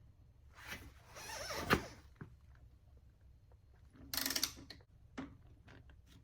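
Torque wrench tightening a motorcycle's fender stay bolts: a tightening stroke ending in one sharp click near two seconds in, then a short burst of ratcheting about four seconds in.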